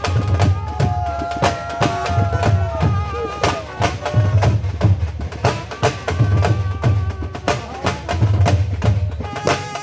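Dhol drumming in a fast Sufi dhamaal rhythm: deep bass-side thumps about every three-quarters of a second under rapid, sharp stick strokes, with a held melodic line running above the drums.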